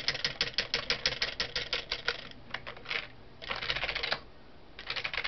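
Computer keyboard keys clicking as a parakeet presses them: a quick run of clicks, about eight or nine a second, for the first couple of seconds, then two short dense rattles of key clicks.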